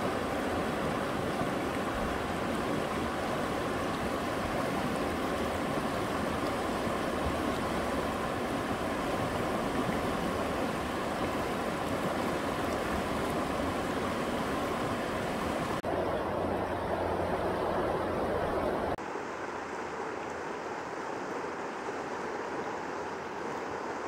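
Shallow mountain stream rushing steadily over rocks and small rapids. About three-quarters of the way through, it changes suddenly to a quieter, thinner rush.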